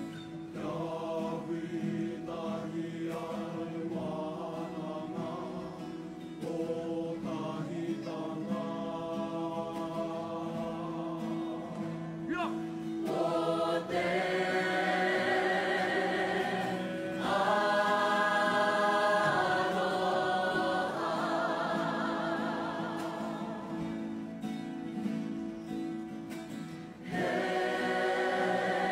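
A choir singing in parts, with held notes over a steady lower line, swelling louder and fuller about halfway through.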